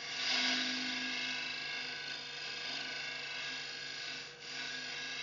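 Wood lathe spinning an ash hollow form while a boring bar's cutter shaves the inside wall: a steady cutting noise over the lathe's hum, easing briefly about four seconds in.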